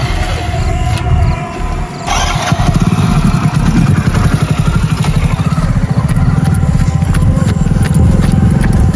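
Motorcycle engine running close by. It dips for a moment about a second in, then picks up again and runs steadily.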